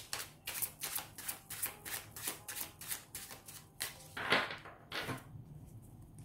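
A deck of oracle cards being shuffled by hand: quick, even card flicks about four a second, then two louder, longer swishes a little past the middle before the shuffling eases off.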